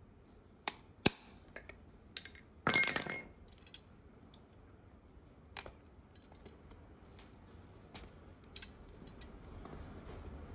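Sharp metallic clinks of a farrier's pincers working against a horseshoe and its nails on a hoof. There are a few separate clicks, then a louder rattling clatter about three seconds in, then fainter scattered ticks.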